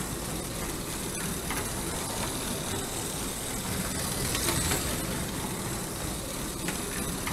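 Lego Holiday Train (set 10254) locomotive running on plastic track, driven by a Power Functions motor: a steady whir of motor and gearing with a few light clicks. It gets louder about four seconds in as the engine passes close by.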